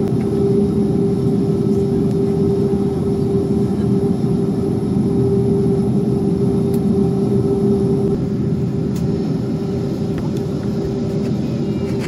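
Boeing 737 jet engines running steadily, heard from inside the cabin as a loud, even drone with one held tone above it; the level eases slightly about eight seconds in.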